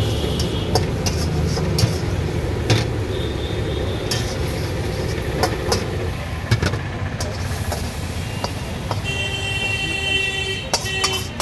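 Metal spatula scraping and clanking against a steel wok during stir-frying, with irregular sharp knocks, over a steady low rumble of traffic. A vehicle horn sounds briefly near the end.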